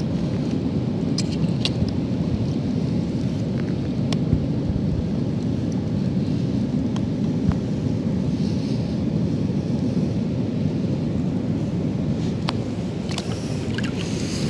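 Steady low rumble of surf and wind at a rocky seashore, with a few faint scattered clicks.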